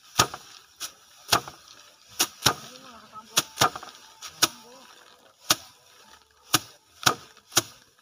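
Sheaves of harvested rice beaten by hand against a slatted wooden threshing rack: sharp slaps about a dozen times at an irregular pace, as two threshers swing in turn.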